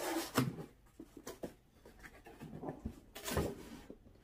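Cardboard box being handled and opened, its flaps rustling and scraping in a few short bursts, the loudest near the start and about three seconds in.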